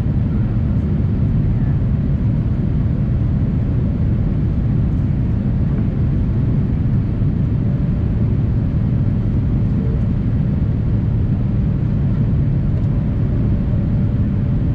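Boeing 787 cabin noise in the climb after takeoff: an even, low rumble of engine and airflow heard from inside the cabin, with a faint steady hum above it.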